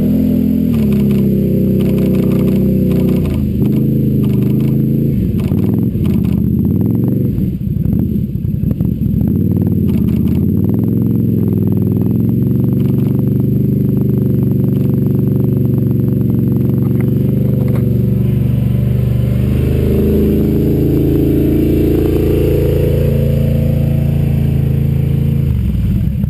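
Quad bike (ATV) engine running close by, its pitch dipping and rising as the throttle is worked, with a rapid clattering about five to ten seconds in.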